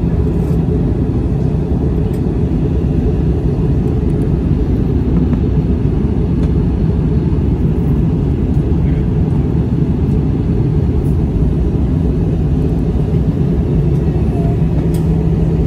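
Steady in-flight cabin drone of an Airbus A321 heard from a window seat beside its CFM56 turbofan engine: a dense low rumble with a steady hum under it.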